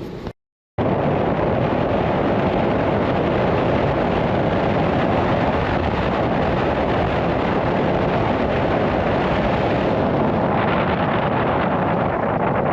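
Loud, steady rushing of wind buffeting the microphone in a blizzard. It cuts in suddenly after a brief silence.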